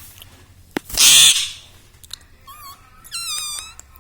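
Indian ringneck parrot calling: a loud, harsh squawk about a second in, then a short warbling whistle and a longer wavering call near the end.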